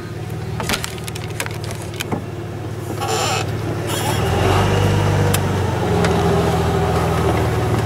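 Pickup truck engine running at low speed, heard from inside the cab, growing louder about halfway through as the truck pulls ahead. A few light clicks and knocks in the first couple of seconds and a short hiss about three seconds in.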